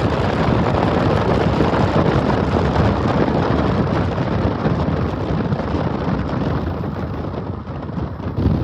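Steady rumbling roar of a moving vehicle, with wind buffeting the microphone.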